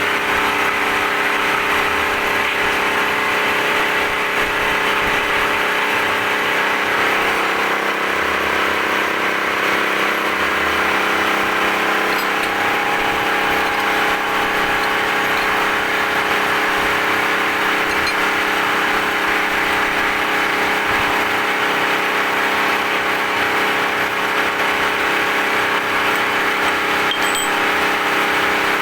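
Metal lathe running steadily, a constant machine hum with several steady tones over an even hiss.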